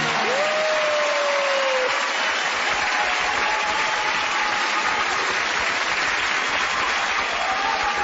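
Studio audience and judges applauding and cheering, a steady dense clapping. Near the start, one long tone rises briefly and then slowly falls above the clapping.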